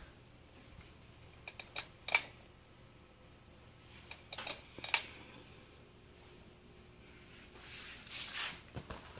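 52-inch SMC HDC52 ceiling fan running with a faint steady hum, under a few irregular sharp clicks and a short rustle.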